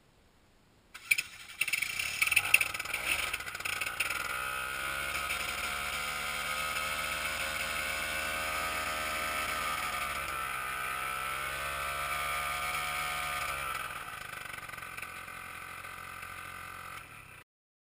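The Aeros ANT nano trike's engine starting up, uneven and clattering for a few seconds as it catches, then running steadily with a brief dip in pitch that recovers. Near the end it drops to a quieter idle, and the sound cuts off suddenly.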